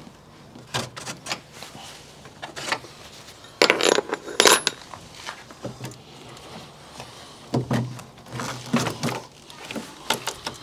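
Plastic and metal parts of a Chevrolet Tahoe's front position-light housing being worked loose by hand: a run of small sharp clicks, knocks and rattles, with a louder clatter about four seconds in.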